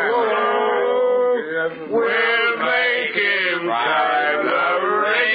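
Men singing together, held and wavering sung notes, heard through the narrow, muffled sound of an old 1930s radio broadcast recording.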